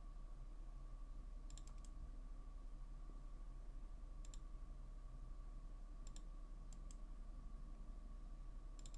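Scattered faint clicks of a computer mouse and keyboard, a few at a time, then a quick run of them near the end, over a steady faint electrical hum.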